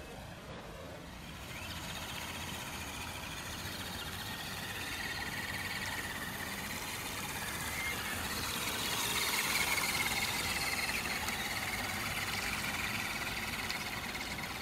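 Axial Honcho RC scale truck's electric motor and gears whining as it drives through shallow water, with its tyres splashing. The sound grows louder, strongest about nine to ten seconds in.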